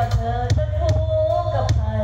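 Live band music with heavy bass and a drum kit keeping a steady beat under a held, wavering melody line.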